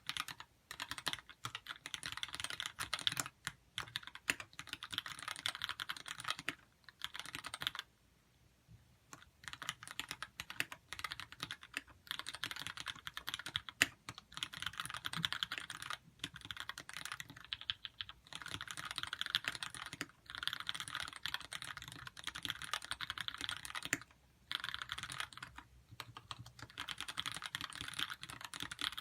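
Lyn Dolphin v2 custom mechanical keyboard with Gateron Yellow linear switches being typed on: a fast, steady run of keystrokes broken by short pauses, the longest about eight seconds in.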